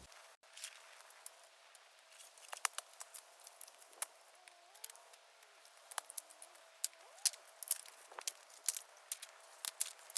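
Bamboo bonfire crackling: irregular sharp pops and ticks, some much louder than others, from dead bamboo burning.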